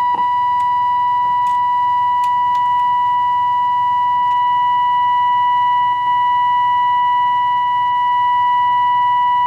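Steady high-pitched test tone with overtones from the Philips 206A valve radio's loudspeaker, briefly dipping about six seconds in. It is the signal generator's modulated 473 kHz IF test signal passing through the set while an IF transformer slug is peaked during alignment.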